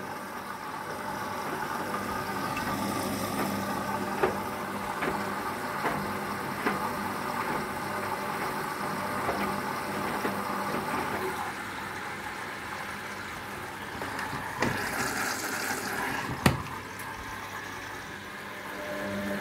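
Hoover DXC58W3 washing machine running its service cycle: water running and splashing in the machine over a steady motor or pump hum, with scattered knocks, the loudest two about fifteen and sixteen and a half seconds in.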